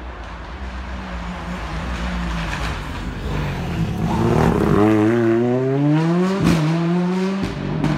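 Ford Fiesta rally car approaching at speed and passing close by. Its engine rises from a distant rumble to a loud, climbing note as it accelerates, with a sharp drop at a gear change about six and a half seconds in, before it pulls away.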